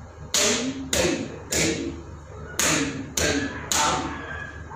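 Bare feet stamping flat on a tiled floor in Bharatanatyam tatta adavu, sixth variation: six sharp strikes in two groups of three, about half a second apart, with a pause of about a second between the groups. Each strike rings briefly.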